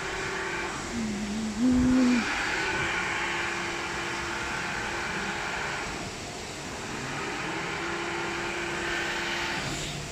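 Christ Varius rollover car wash gantry running through a wash cycle: steady motor hum and hiss of the machinery, with a louder hum and a low thump about two seconds in.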